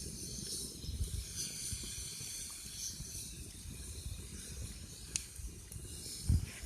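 Insects chirping steadily at a high pitch over a small wood campfire crackling, with a sharp pop right at the end.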